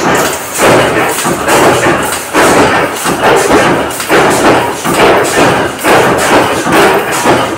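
Press running a fastener die, thumping steadily about three times every two seconds as it stamps M10 shield anchor parts.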